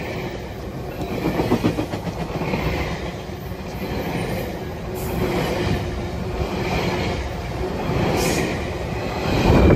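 GO Transit bilevel passenger coaches rolling past close by: a steady rumble of steel wheels with a clickety-clack over the rail joints. The sound swells as each car goes by and is loudest near the end.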